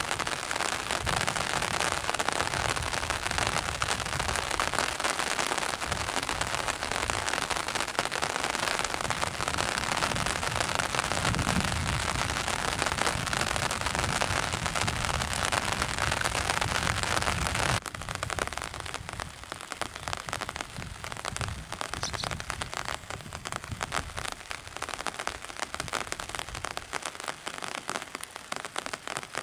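Steady rain falling in a dense hiss, which drops suddenly to a quieter level about two-thirds of the way through.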